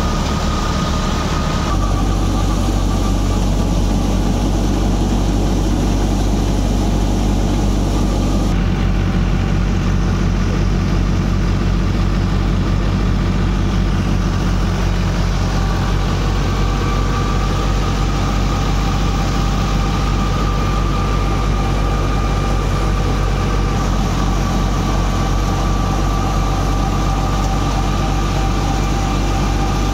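Belt-driven wheat thresher running steadily: a continuous mechanical drone with a thin steady whine. The sound changes abruptly about 2 seconds and again about 8 seconds in.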